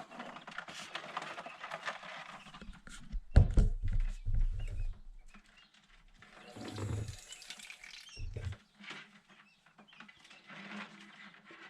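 Newly hatched quail chicks peeping, with three heavy low knocks, the first and loudest about three and a half seconds in.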